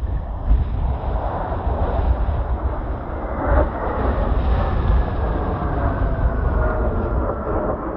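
Kawasaki T-4 jet passing overhead: its engine roar builds about a second in, and a whine slowly falls in pitch through the second half. Heavy wind rumbles on the microphone underneath.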